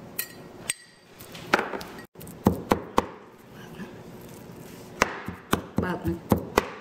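Kitchen knife chopping a sticky lump of dried tamarind on a wooden cutting board: irregular knocks of the blade on the wood, a few in the first three seconds, then a quicker run of about six near the end.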